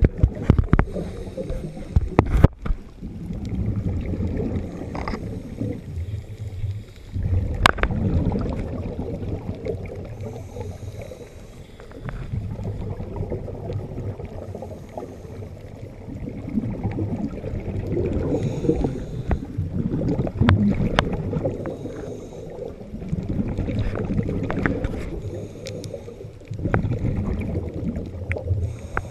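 Underwater sound of a diver breathing: muffled gurgling of exhaled bubbles that swells and fades every few seconds. A few sharp knocks stand out, the loudest about two and a half seconds in.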